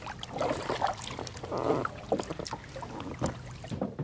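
Kayak paddling: paddle blades dipping and splashing in calm water, with scattered small clicks between the strokes.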